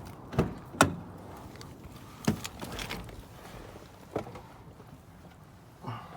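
A handful of separate knocks and clunks: two sharp ones in the first second, another about two seconds in, and fainter single ones later.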